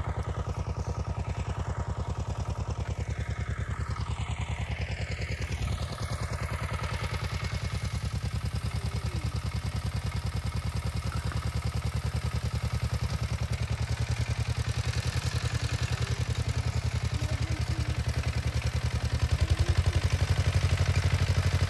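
Farm tractor engine running steadily with a fast, even pulse, growing somewhat louder near the end.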